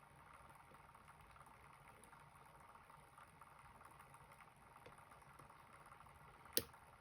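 Faint small clicks and scratches of a lock pick working the pins of a U-Shin Showa pin tumbler lock, with one sharp, loud click about six and a half seconds in.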